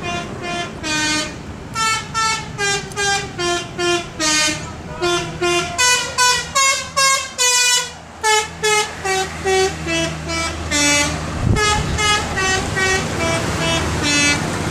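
Telolet multi-tone musical air horn on a super-high-deck bus, playing a quick melody of short notes that step up and down, with a few longer held notes about six to eight seconds in. The bus engine runs underneath.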